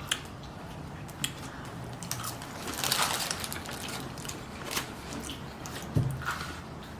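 Close-up sounds of someone eating: chewing and mouth noises with scattered small clicks, a louder noisy stretch about three seconds in and a soft thump near six seconds.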